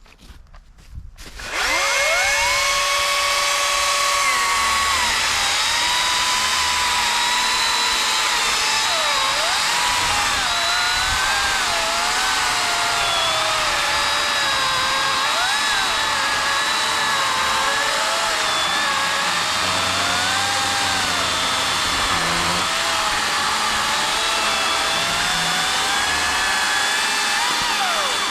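Milwaukee 18-inch brushless cordless chainsaw starting up about a second and a half in with a rising whine, running free briefly, then cutting into wood, its motor pitch dropping and wavering under load.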